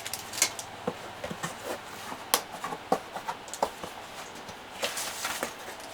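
Plastic model-kit sprues and their bags being handled: an irregular run of small clicks, taps and crinkles.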